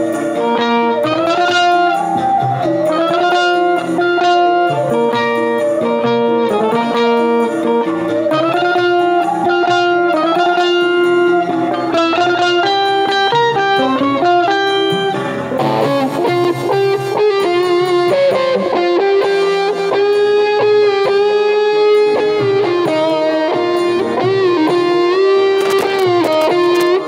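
Music led by a lead guitar playing a sustained melody, with wavering, bent notes in the second half.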